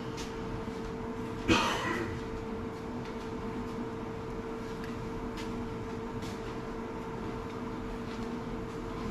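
A steady low hum with a fixed tone, broken by one loud clatter about a second and a half in, with a few faint clicks.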